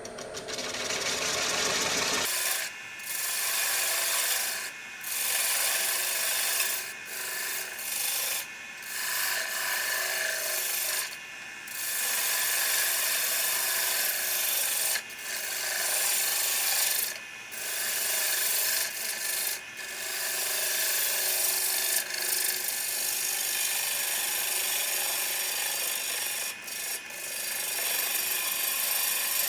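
Cottonwood platter's edge being worked while it spins on a wood lathe: a rasping rub of abrasive or tool against the wood that starts about two seconds in and comes in long strokes with short breaks between them.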